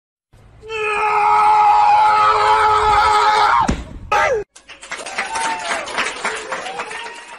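A loud, held, screaming cry lasting about three seconds that breaks off with a sharp drop in pitch, followed by a brief falling cry and some quieter wavering cries.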